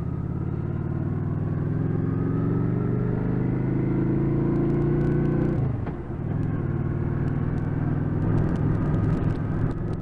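V-twin cruiser motorcycle engine pulling along, its note rising slowly for about five seconds. Past the middle it drops away for a moment, as at a gear change, then pulls on again.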